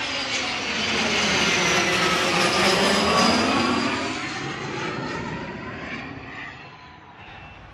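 Dassault/Dornier Alpha Jet passing low overhead on landing approach, the noise of its twin turbofan engines growing to a peak about two to three seconds in, then fading as it moves away.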